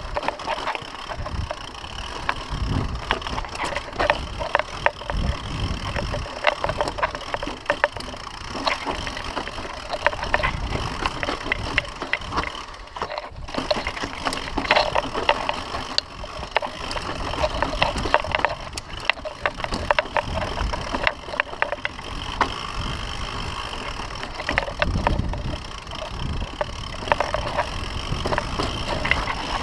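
Mountain bike riding down rocky singletrack: a continuous clatter and rattle of the bike and tyres over dirt and rocks. A low wind rumble on the microphone swells a few times.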